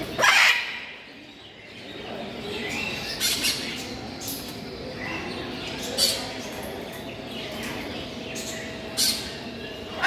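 Parrots squawking: one loud harsh screech about half a second in, then shorter calls roughly every three seconds over steady background noise.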